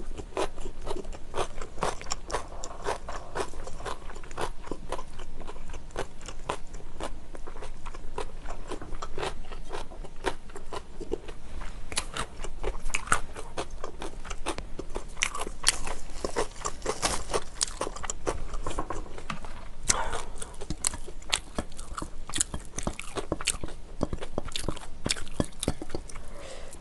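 Close-miked chewing of food: a person's mouth crunching and biting, with many small crisp crunches coming irregularly throughout.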